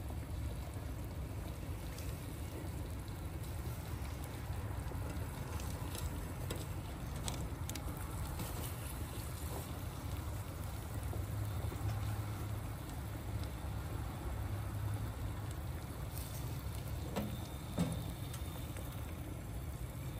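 Egg frying in oil in a pan on a wood stove top, a steady crackly sizzle over a low rumble, with a couple of small knocks near the end.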